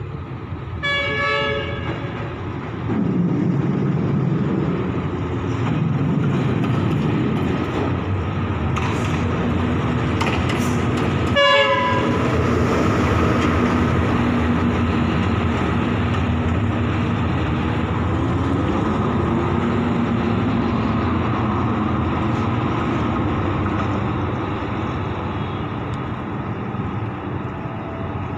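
KAI BB 303 diesel-hydraulic locomotive sounding its horn twice, briefly about a second in and again about eleven seconds in, while its diesel engine runs loud as it comes up and passes close by. The engine sound eases off near the end as the locomotive moves away.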